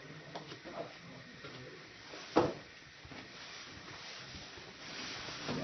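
Kitchen clatter: one sharp knock about two and a half seconds in, with a few lighter clicks and faint voices in the background.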